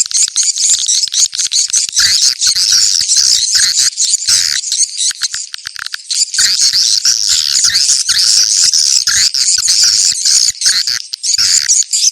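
Recorded swiftlet calls played as a lure sound: dense, continuous high twittering and chirping laced with rapid clicks, dipping briefly about five seconds in.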